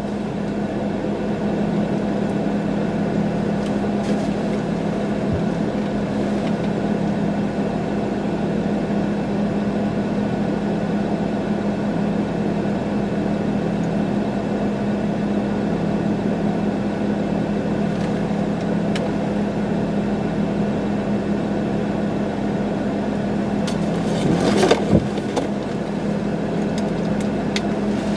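Steady hum of an idling vehicle engine, with a low, even drone. A short clatter of knocks comes about 25 seconds in.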